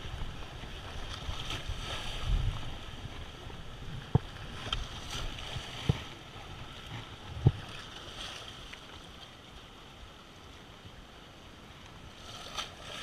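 Small waves washing and splashing against the rocks of a jetty, with wind rumbling on the microphone during the first few seconds. Three sharp knocks come about four, six and seven and a half seconds in.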